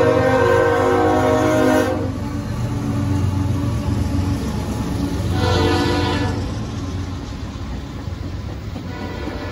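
CSX freight train passing with its horn sounding: a long blast that ends about two seconds in, then a second, shorter blast around five and a half seconds, over the low rumble of the diesel locomotives. Near the end the freight cars roll by.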